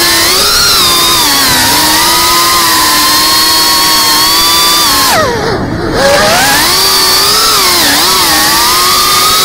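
FPV drone's electric motors whining, their pitch rising and falling with the throttle. About five seconds in the pitch drops steeply as the throttle is cut, then climbs back up as power comes on again.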